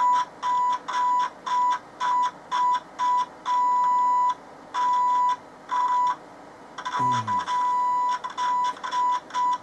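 A 1 kHz test tone from a transistor radio's speaker, cutting in and out in irregular beeps from a fraction of a second to about a second long. The dropouts come from an intermittent connection at the output coupling capacitor, which the repairer takes for a dry joint.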